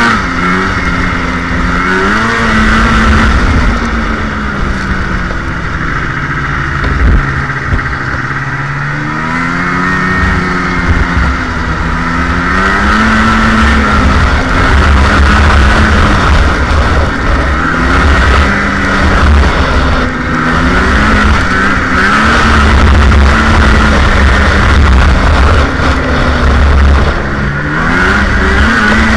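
Polaris 550 Voyageur snowmobile's fan-cooled two-stroke twin running along a trail. Its pitch rises and falls again and again as the throttle is opened and eased off.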